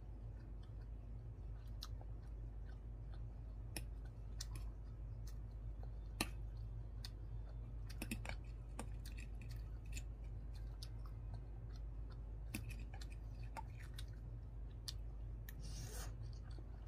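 Eating sounds: scattered sharp clicks of a metal fork against a ceramic plate and chewing of ramen noodles, over a low steady hum. A short slurp of noodles comes near the end.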